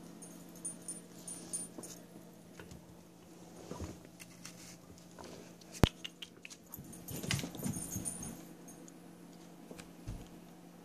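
Soft knocks, rustles and pattering as a cat fetches a toy on carpet, with one sharp click about halfway through, over a steady low hum.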